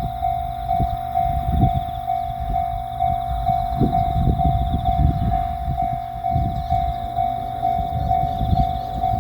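Japanese level-crossing warning bell ringing its steady electronic 'kan-kan', one pitch repeating about twice a second. Irregular low rumbling runs underneath.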